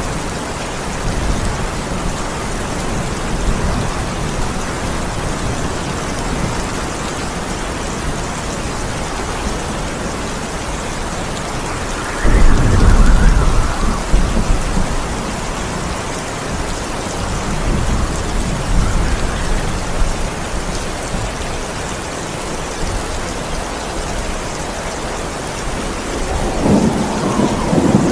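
Steady heavy rain with thunder: a sudden loud rumble of thunder about halfway through that rolls on for a few seconds, and another rumble building near the end.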